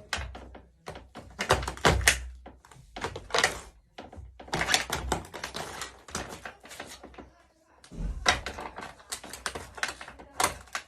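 Plastic remote-controlled toy car being crushed under high heels: a rapid, irregular run of cracks, snaps and clicks.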